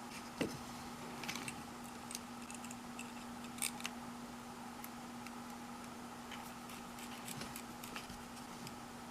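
Scattered light clicks and taps of small metal hardware being handled, a bolt and washer being fitted, over a faint steady hum.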